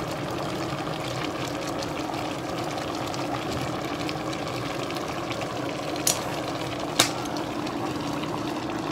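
Steady kitchen background noise, a low hum with a light hiss, broken by two sharp clicks about six and seven seconds in.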